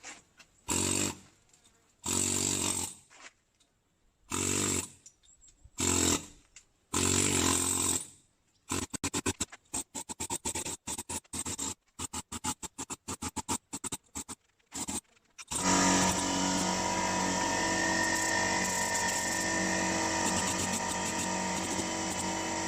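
Pneumatic air chisel hammering at old cement pointing in a stone wall. It comes in short bursts of a second or so, then in rapid stuttering taps, and about three-quarters of the way through it settles into one continuous run of steady mechanical noise.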